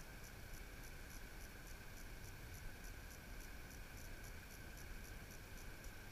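Faint cicada chorus: a rapid, even, high pulsing with a steady shrill drone, over a low rumble of wind on the microphone.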